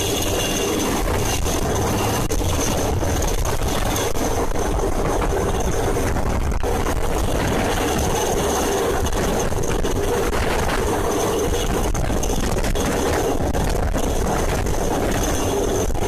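A motor engine running steadily with a constant hum, unchanging throughout.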